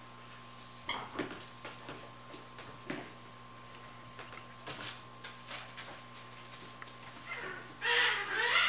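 Basenji puppies playing on a hardwood floor: scattered light taps and clicks of paws and toys, then near the end a puppy's pitched cry lasting about a second, the loudest sound.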